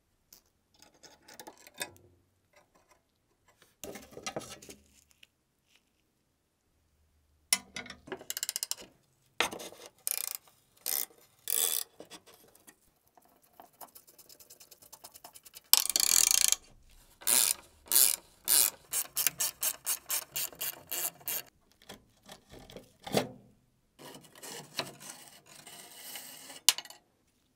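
Rusted screws and the pivot nut of a hand guillotine cutter being turned loose with a screwdriver and a wrench: scattered creaks, scrapes and metal-on-metal clicks. Past the middle they build to a loud scrape and a run of quick, evenly spaced clicks.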